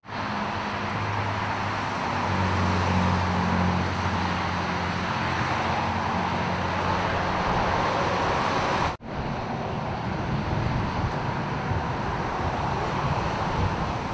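Steady vehicle and road traffic noise, with a low steady hum through the first half. The sound drops out for an instant about nine seconds in, then the same noise continues.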